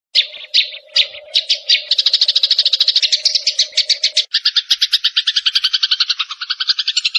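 Recorded songbird chatter: sharp high chirps that start spaced and quickly speed up to about ten notes a second. About four seconds in they switch to a denser, rattling trill.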